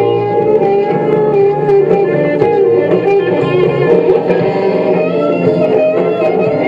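Music led by guitar, with a run of sustained and changing guitar notes.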